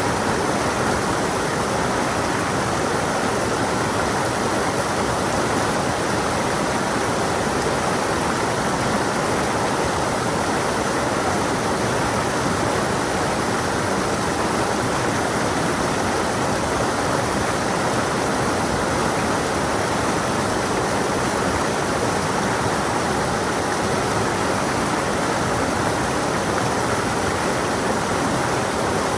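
A stream of water flowing over rocks, a steady rushing and splashing that does not change.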